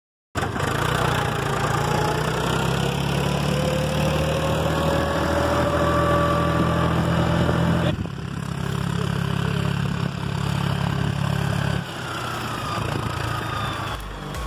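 Farmtrac tractor's diesel engine running steadily under way, with a faint whine drifting up and down above it. The sound changes character about eight seconds in and again near twelve seconds.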